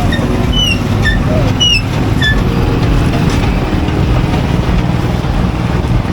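Steady, loud background rumble of a busy place, with a few short, high, falling chirps in the first couple of seconds.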